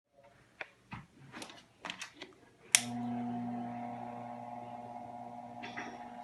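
A few small clicks and knocks, then a sharp click about three seconds in as a Ventisol VOC 60 cm 200 W pedestal fan is switched on, and its motor starts a steady hum.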